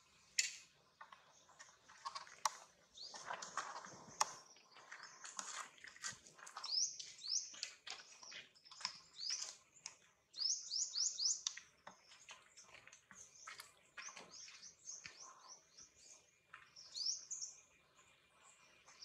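Birds chirping: short, high chirps, several of them in quick runs of four or five, with scattered faint clicks.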